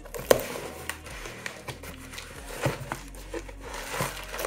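Clear plastic wrapping crinkling and a cardboard parcel box being pulled and torn open by hand, in a run of irregular crackles and rips.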